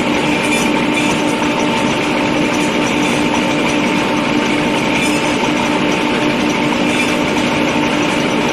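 Compressed-air well-drilling rig running steadily, its engine and air compressor giving a constant loud hum with an even hiss over it.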